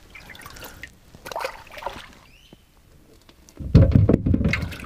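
Water splashing in a boat's livewell as a hand grabs crappie out of it: a few light splashes first, then a louder stretch of splashing and bumping in the last second or so.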